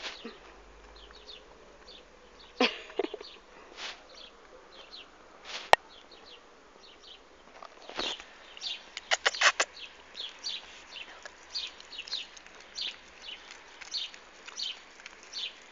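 A puppy licking paste from a tube held out to it: a scatter of short, wet licking and smacking clicks, with a quick run of them about nine seconds in.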